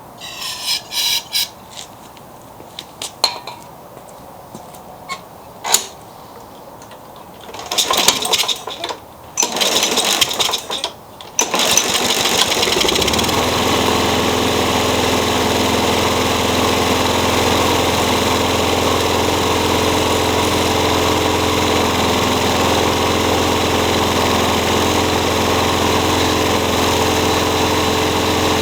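Small walk-behind lawn mower engine being pull-started: a few short bursts of rope pulls and clatter, then the engine catches about twelve seconds in and runs steadily.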